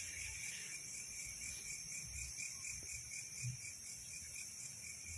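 Night insect chorus: crickets trilling steadily, several high-pitched pulsing trills layered together.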